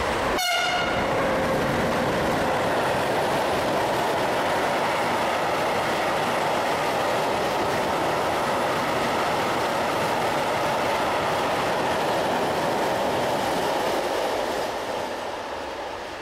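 A freight train of covered wagons passing through the station at speed, with a steady rumble of wheels and wagons that dies away about 14 seconds in. A short pitched tone sounds about half a second in.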